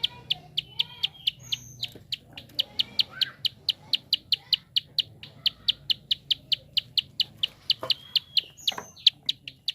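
Prinia (prenjak) giving its fast clicking call: a steady, rapid run of short, sharp, high notes, about four to five a second. A couple of other faint bird chirps sound over it.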